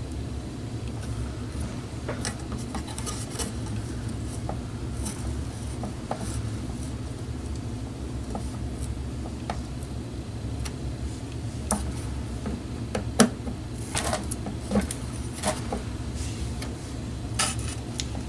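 Scattered light clicks and taps of small hard parts or tools being handled, a few sharper knocks in the second half, over a steady low hum.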